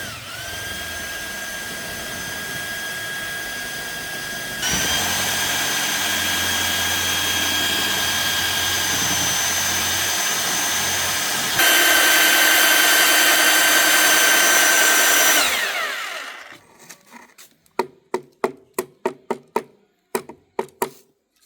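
Handheld electric power tool motor running at a steady high whine, getting louder twice as it takes on work, then switched off and winding down with falling pitch. A quick run of sharp taps follows near the end.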